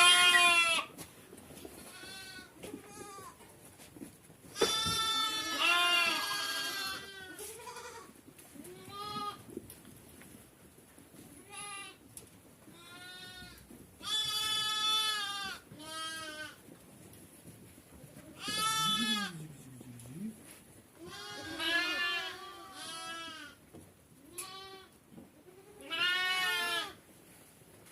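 A herd of goats and sheep bleating: a dozen or more separate calls of different pitches and loudness, one after another with short gaps, the loudest right at the start and about five seconds in.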